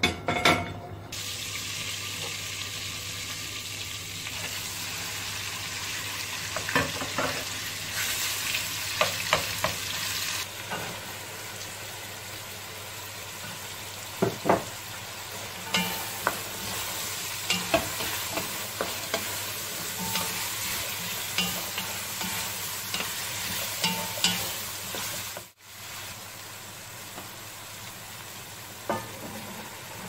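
Minced meat and diced carrots sizzling as they fry in a pot, with a utensil stirring and scraping against the pot from time to time. The sizzle cuts out briefly about three-quarters of the way through and comes back quieter.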